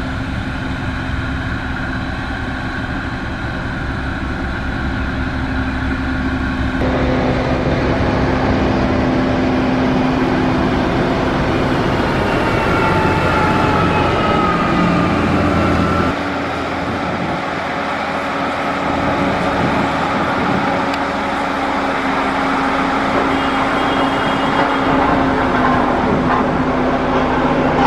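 Motor grader's diesel engine running steadily under load. The sound changes abruptly about a quarter of the way in and again near the middle, with a faint whine that rises and falls in between.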